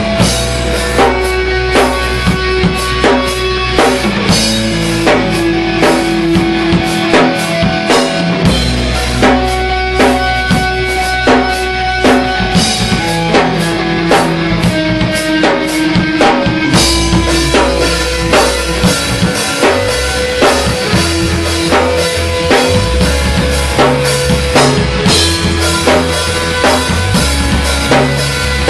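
Drop-tuned heavy progressive metal band playing live: a drum kit with regular bass-drum and snare hits under distorted electric guitar and bass guitar holding low notes that change every second or two.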